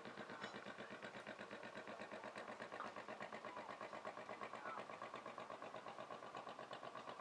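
A small engine running steadily at idle, with a quick, even beat of about six pulses a second.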